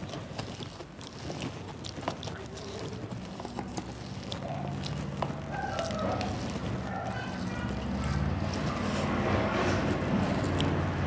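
Hand mixing rice with mashed soybean bhorta on a metal plate: soft wet squelching with light clicks of fingers against the plate. A low steady hum comes up in the background from about halfway.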